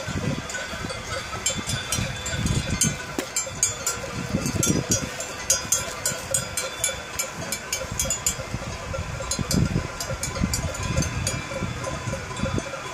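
Cowbells on walking cattle clanging irregularly, each clank ringing on, with the clanks thickest in the first two thirds. A low, uneven rumble runs underneath.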